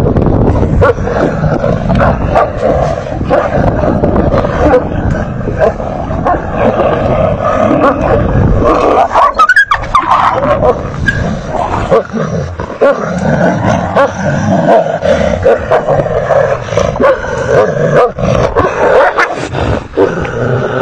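A large guard dog and a pack of wolves growling continuously in a close scuffle, the dog guarding a carcass against the wolves.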